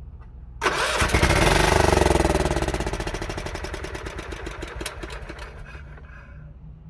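Electric starter cranking the John Deere 16 HP lawn tractor engine without it firing, a rhythmic whirring that starts suddenly about half a second in and then gradually fades. The engine is being turned over to prime fuel through the fuel pump to the carburetor.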